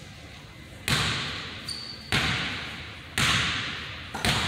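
A basketball bouncing on a hardwood gym floor about once a second, four times, each bounce echoing through the large hall; the last bounce comes as a quick double. A brief high sneaker squeak on the floor comes just before the second bounce.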